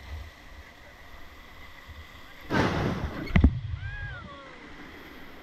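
River water rushing around an inflatable raft, with wind rumbling on the microphone. Halfway through comes a sudden loud splash lasting about a second, ending in a heavy thump, and just after it a voice calls out briefly.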